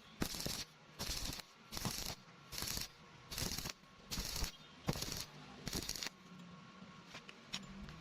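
Rhythmic strokes of hissing, rasping noise, about two a second, like scrubbing or shaking, for about six seconds, then a few scattered clicks.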